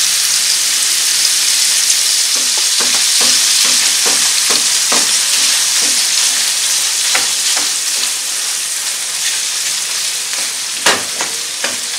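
Ground beef with onion and garlic sizzling steadily in a nonstick frying pan, with a fork scraping and clicking against the pan as the meat is stirred and broken up. A sharper knock on the pan comes near the end.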